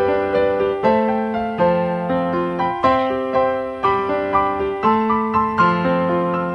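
Soft piano music, a steady flow of held notes and chords with a new note about every half second.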